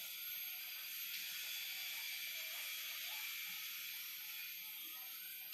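Chalk scratching on a blackboard as words are written, over a steady background hiss.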